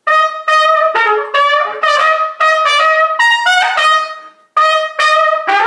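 Solo trumpet playing a phrase of short, sharply tongued notes, breaking off briefly a little after four seconds in, then starting a new phrase.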